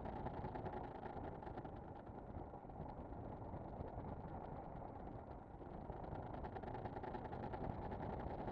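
Motorcycle engine running steadily while cruising at about 50 km/h, mixed with wind and road noise, picked up by a camera suction-mounted on the bike's front.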